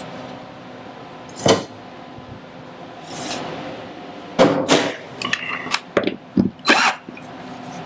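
Knocks and clicks of hand tools and mounting hardware being handled: a single knock about a second and a half in, then a quick run of clacks and taps from about four and a half to seven seconds in.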